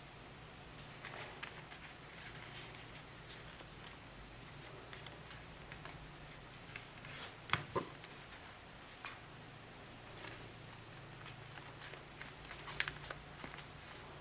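Sheet of origami paper being folded and creased by hand: scattered crisp rustles and crackles, with a sharper crackle about halfway through and another near the end.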